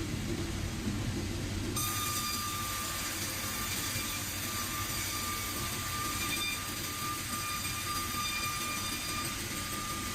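Sawmill machinery running with a steady rumble. A high, steady whine joins about two seconds in and holds almost to the end.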